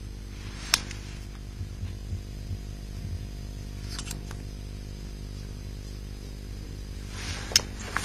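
A steady low hum with a few sharp, short clicks, the most prominent less than a second in and another a little before the end.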